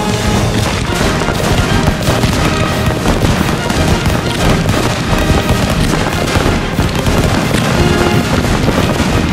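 Aerial fireworks going off in a dense, unbroken barrage, with cracks and booms overlapping many times a second, mixed with music.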